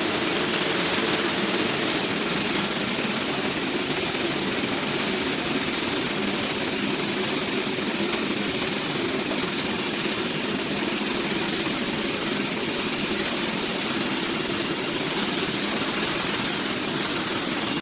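Industrial vacuum cleaner running steadily while its metal wand sucks up steel slag through a 50-calibre hose: an even, loud rushing hiss with a steady hum underneath.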